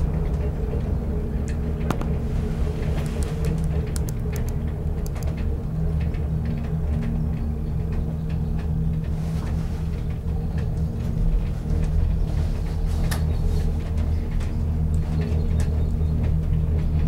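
Steady low rumble and hum of a gondola cabin travelling along its cable, heard from inside the cabin, with scattered light clicks and rattles.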